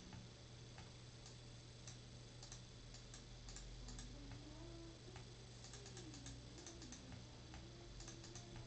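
Faint, irregular clicks of a computer mouse and keyboard, bunched in quick runs about six and eight seconds in, over a low steady electrical hum.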